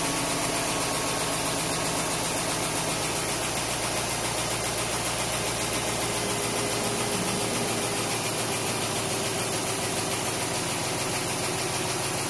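Chrysler HEMI V8 idling steadily on a cold start, its idle settling down.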